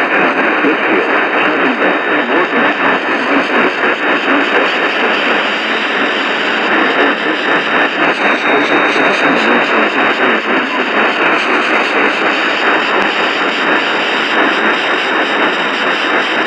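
Static and hiss from an AM radio receiver, a steady rushing noise with a narrow, muffled band that cuts off above the upper midrange.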